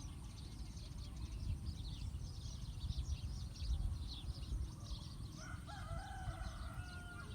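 A rooster crowing once near the end, a drawn-out call, over many small birds chirping steadily and a low rumble.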